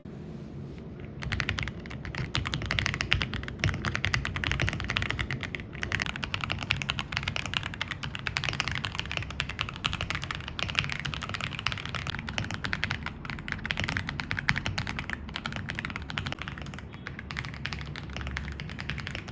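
Continuous fast typing on an AULA F87 Pro mechanical keyboard: a dense run of key clacks starting about a second in, with a brief pause about six seconds in.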